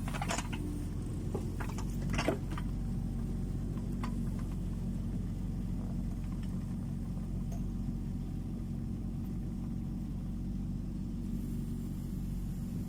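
Kubota U20 mini excavator's diesel engine running steadily, with a few short knocks near the start and about two seconds in.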